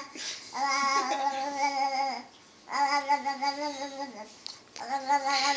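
A young child's voice making long, level-pitched held vocal sounds, three in a row, each about a second and a half with short breaks between.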